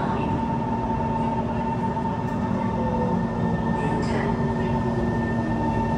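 Inside a Kawasaki C151 MRT train in an underground tunnel: a steady rumble of train noise with a constant electrical hum at two or three pitches.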